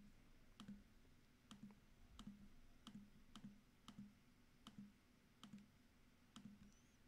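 Near silence with faint, sharp clicks repeating roughly every three quarters of a second.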